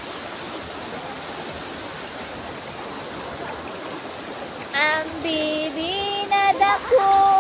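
Steady rush of a waterfall pouring into a pool. About two-thirds of the way in, a high voice joins with a few long, held notes.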